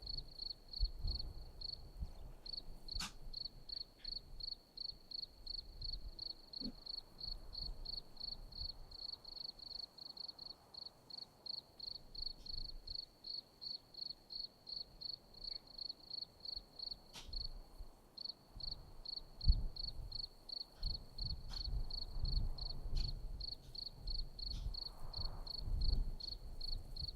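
A cricket chirping steadily, a high, even chirp about three times a second. Low muffled rumbles come and go in the second half.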